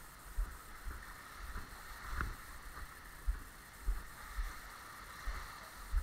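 Footsteps of a person walking down concrete steps and a dirt path, heard as low thuds close to the microphone about twice a second, with the carried camera jostling at each step. A steady background hiss runs underneath.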